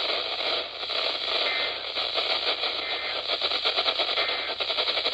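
Weather radio receiver hissing with heavy static on a weak signal from NOAA Weather Radio station KHB32. Fast rhythmic pulsing interference comes in about halfway through. No voice comes through clearly.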